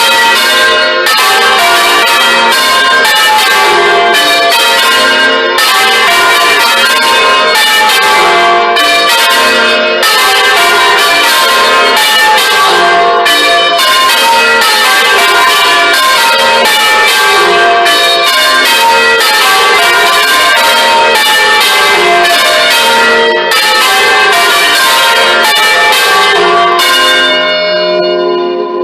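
Ring of six church bells (tenor in F) rung full circle, the bells striking one after another in a rapid, continuous pattern of overlapping tones. Near the end the strikes thin out briefly.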